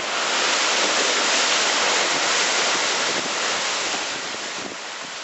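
Steady rushing noise of typhoon wind and rain, fading out over the last second or two.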